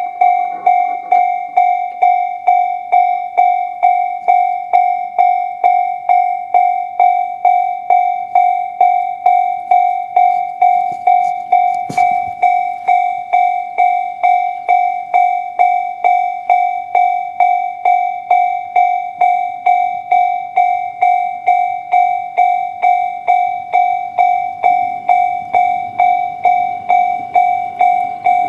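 Japanese railway level-crossing alarm of the Tobu 'sound C' type, an electronic bell sounding one ding over and over at an even pace of about one and a half a second.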